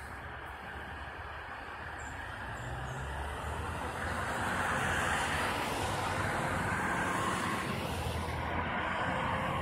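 Road traffic: vehicle engines and tyre noise with a low engine drone, growing louder until about five seconds in and then holding steady.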